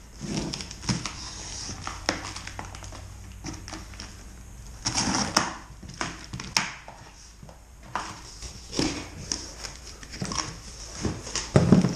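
Utility knife slicing through packing tape on a cardboard box, then the cardboard flaps being pulled open, with scattered scrapes, rustles and clicks and a louder cardboard thump near the end.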